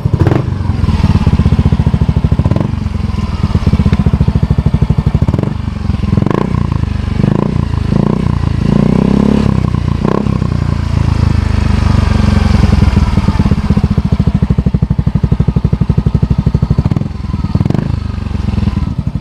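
Yamaha Mio i 125 scooter's single-cylinder engine running through a freshly fitted Apido Pipe V3 aftermarket exhaust, with a crisp note. It idles steadily with several short throttle blips, and a brief rise and fall in revs near the middle.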